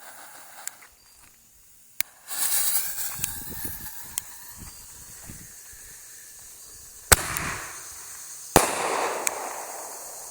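A consumer reloadable mortar canister shell. Its lit fuse hisses and sputters for about two seconds, then a sharp bang launches it, and about a second and a half later the shell bursts with a report that echoes away.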